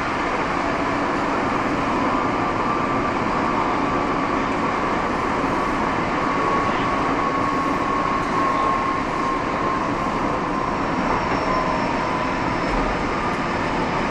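Nagoya City Subway Tsurumai Line train running in the tunnel between stations, heard from inside the car: a steady rumble of wheels and running gear with a faint thin whine.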